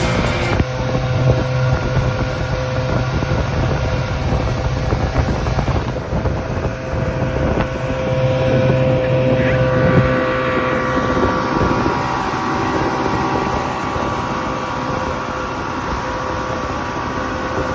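Two-stroke Chrysler 90 hp outboard motor running under way, a steady engine note with wind noise on the microphone; its note shifts about ten seconds in.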